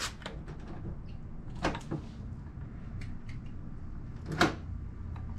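A few sharp clicks and knocks, one right at the start, a pair at about 1.7 and 2 seconds and a louder one near the end, over a low steady rumble.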